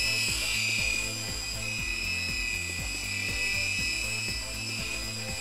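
Air Hogs Hawk Eye micro electric helicopter's rotor motors whining steadily in flight, with background music that has a steady beat.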